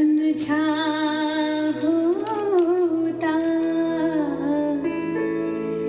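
Music played back through Altec 604-8G coaxial studio monitors driven by a single-ended tube amplifier. A melody line slides and wavers in pitch over steady held tones.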